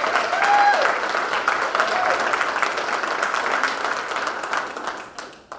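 Audience applauding, with a few voices calling out in cheers during the first two seconds. The clapping thins and dies away near the end.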